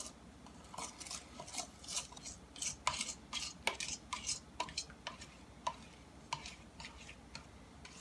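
A utensil stirring pudding in a stainless steel mixing bowl, with irregular clinks and scrapes against the metal side.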